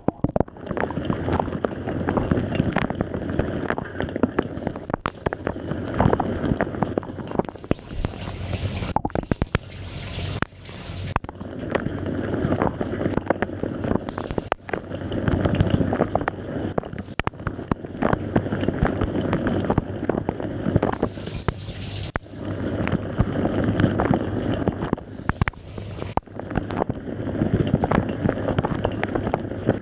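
Water spraying and splashing inside a running Samsung dishwasher, with constant spattering clicks and a sloshing sound that swells and falls back every few seconds. The owner reports that the dishwasher's WaterWall spray is not working.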